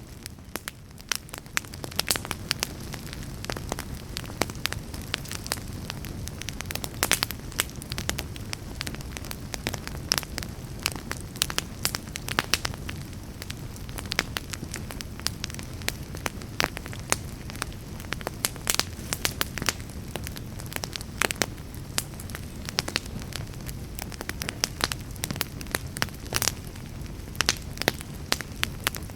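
Fire crackling in a fireplace: many irregular sharp snaps and pops over a steady low rumble of the flames.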